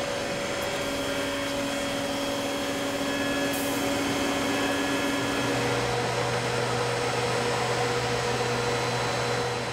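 CNC mill slotting a metal plate with a three-flute roughing end mill under flood coolant: steady spindle and cutting noise with a hiss and several steady tones. About halfway through, a lower hum comes in and the tones shift.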